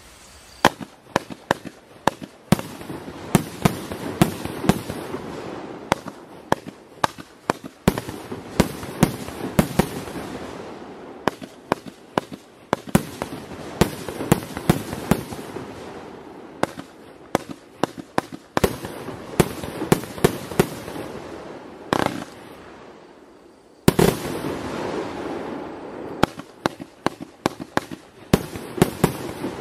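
El Gato 'Fiesta Grande' 100-shot fireworks cake firing: rapid sharp shots and bursts, often several a second, over a dense hissing crackle. It dies down briefly about two-thirds of the way through, then resumes with a loud shot.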